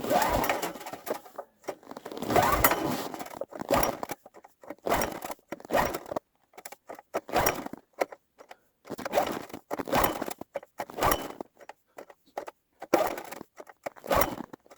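A generator being tried in deep cold without starting: a series of short, irregular rasping bursts and a few knocks, with no engine catching. These are the sounds of a cold-soaked engine refusing to start.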